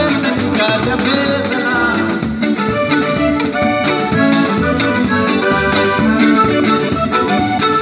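Live band playing: drum kit, electric guitar, bass guitar and keyboard, with held melody notes coming in about halfway through.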